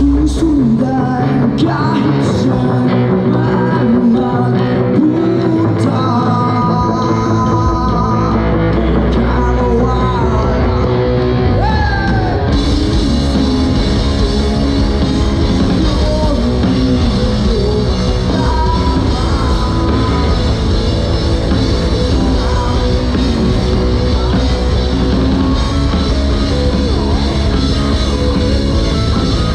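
Live rock band playing a song, with a voice carrying the melody over guitar, bass and drums. The bass fills out about eight seconds in, and the top end brightens suddenly a few seconds later as the full band kicks in.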